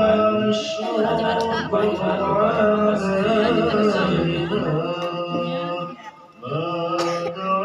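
A man chanting in long, held notes that slide between pitches, with a short pause about six seconds in.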